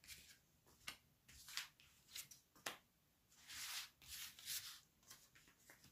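Oracle cards being drawn from a fanned-out deck by hand: soft sliding swishes and light clicks of card against card, several in a row, quiet.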